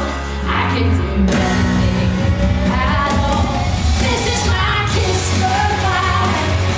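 Rock song with a singing voice over electric guitar and a steady beat, played loud.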